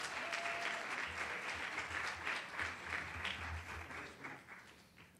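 Audience applauding in an auditorium, a dense patter of many hands clapping that thins out from about three and a half seconds in and has nearly died away by the end.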